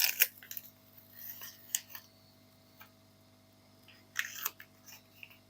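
Scattered small clicks and rustles of a circuit board being handled and turned over on a workbench, with a short cluster of them about four seconds in.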